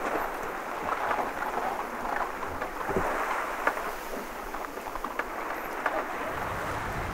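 Sea water splashing and hissing against a small sailboat's hull as it sails through choppy waves, with wind rumbling on the microphone from about six seconds in.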